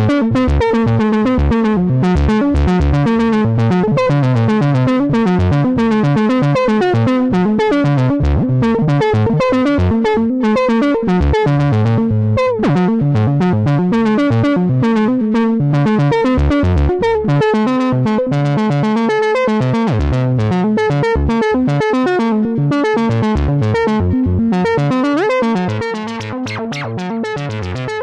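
Eurorack modular synthesizer playing a fast run of repeating notes through the Vorg low/high pass filter set to low-pass. A falling pitch glide comes about 12 seconds in and a rising one near 25 seconds. The sound turns somewhat quieter about two seconds before the end.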